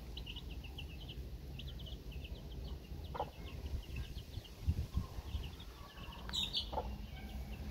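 Domestic chicks peeping: a steady stream of short, high, falling peeps, with a couple of lower calls in between and a brief low rumble about five seconds in.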